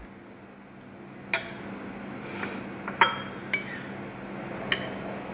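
Metal cutlery clinking against a ceramic plate while eating, four short sharp clinks.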